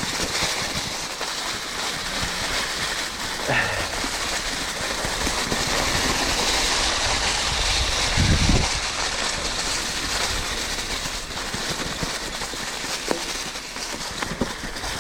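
Mountain bike riding over a rough, bumpy dirt trail: steady tyre noise with the bike rattling over the bumps. It grows louder in the middle, with a low thump about eight seconds in.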